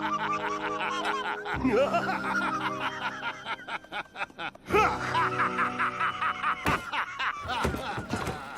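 Cartoon voices laughing at length in quick pulses over background music, with a few sharp clicks or knocks near the end.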